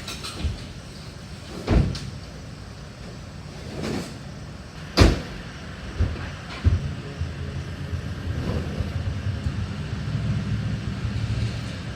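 Debris being tossed and dropped into a truck: a series of sharp bangs and thumps, the loudest about two and five seconds in, over a steady low rumble.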